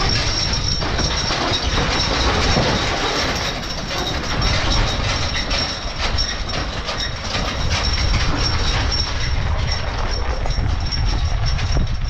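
Empty hay wagon with a steel rack and wooden floor rattling and clanking steadily as a team of draft horses pulls it over a dirt and gravel farmyard, its wheels rumbling along.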